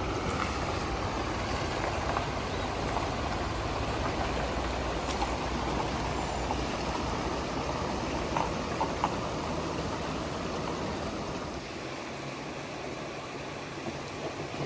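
Vehicle running, its low rumble under a steady rushing hiss; the rumble drops away about twelve seconds in.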